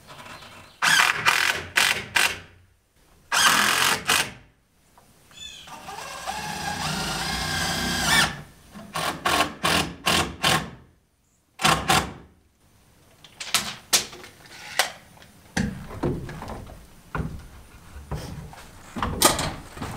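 Wooden roof truss being worked into place by hand on the wall plates: an irregular run of knocks and thumps of lumber on lumber, with a longer scraping stretch in the middle.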